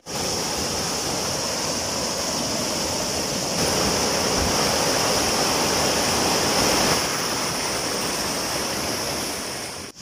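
Rushing water of a rocky mountain stream tumbling in small cascades over boulders: a steady rush, a little louder from about three and a half to seven seconds in.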